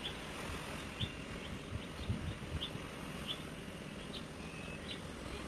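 Quiet outdoor ambience: a faint steady hiss with short high chirps about once a second, and a couple of soft thumps near the start.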